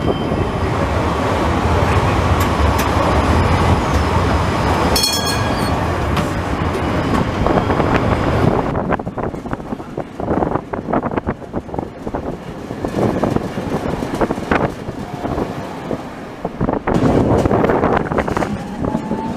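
Heritage tram running along street track, heard from the window: a dense rolling rumble and rush of air, with a brief high-pitched tone about five seconds in. About halfway through it grows quieter and turns to a string of clicks and knocks from the wheels on the rails, then it gets louder again near the end.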